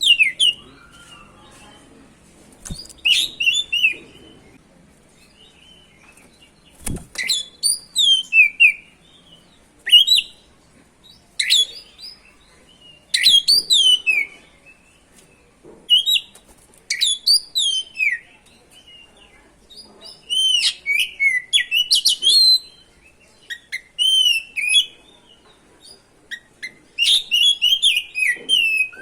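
Oriental magpie-robin (kacer) singing vigorously: short whistled phrases of rising and falling notes, one every second or two, separated by brief pauses. A single dull knock sounds about seven seconds in.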